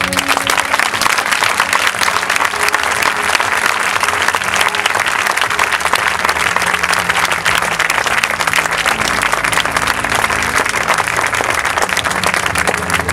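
Large audience applauding, breaking out all at once and keeping up steadily, with the dance music still playing quietly beneath.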